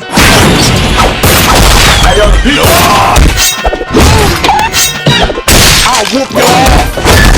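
Loud, rapid montage of meme sound effects: thuds, crashes and glass shattering layered over music and voice clips, cutting off abruptly and switching every second or two.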